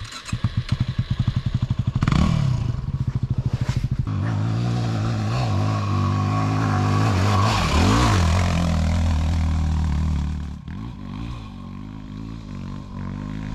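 Dirt bike engine firing up and chugging unevenly at low revs for about two seconds, then revved up and held high, with a rise and fall in pitch near the middle. It drops away sharply near the end.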